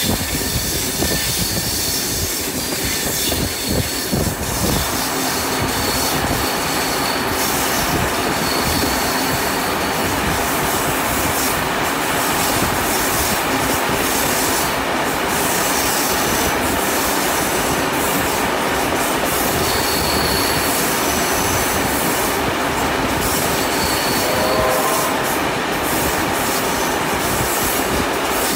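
A steam-hauled passenger train rolling along, heard from beside an open carriage window or doorway: a steady rumble and clatter of wheels on the rails, with faint high wheel squeals coming and going.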